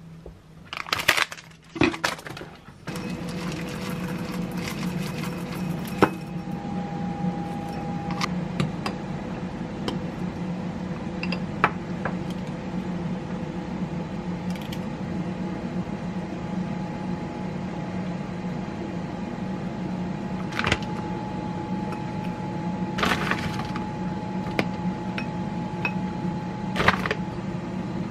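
A few clatters as the air fryer basket is loaded and shut, then the air fryer starts about three seconds in and runs with a steady fan hum while it bakes. Light knocks and glass clinks sound over the hum now and then.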